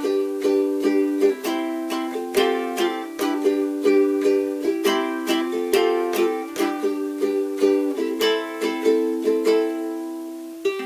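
Córdoba ukulele strummed in a steady rhythm, several strums a second, moving between chords in an instrumental break.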